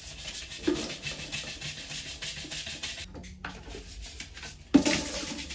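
Scrubbing: a fast run of rubbing strokes with a knock about a second in. The strokes break off about three seconds in and start again with a louder knock near the end.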